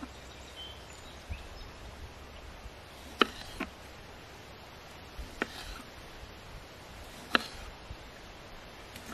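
Kitchen knife slicing tomatoes on a wooden cutting board: the blade knocks sharply on the board a handful of times, a second or two apart, the loudest about three seconds in and about seven seconds in, over a faint steady background hiss.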